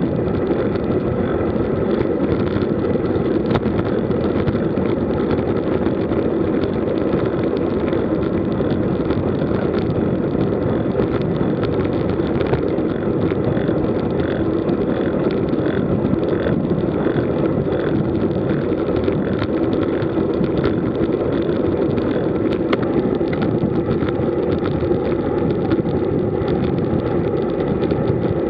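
Steady wind rush on the microphone of a camera mounted on a road bike at cycling speed, mixed with the hum of the tyres on asphalt.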